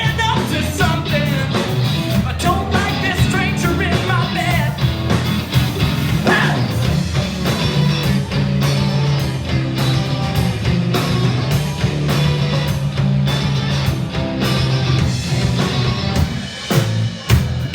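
Live band playing an original tune, with a sustained low bass line under frequent drum hits and melodic lines above.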